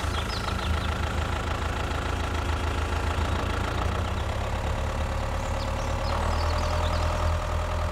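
A small motor running steadily with a low hum and a thin whine that shifts lower about halfway through, likely from one of the DIY miniature vehicles.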